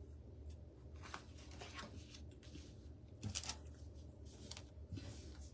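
Tarot cards being handled: faint, scattered rustles and light taps as cards are set down and another is picked up, with a louder cluster a little past three seconds in.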